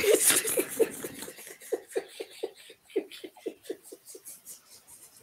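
A man laughing, a long run of short breathy bursts at about four or five a second that fades toward the end.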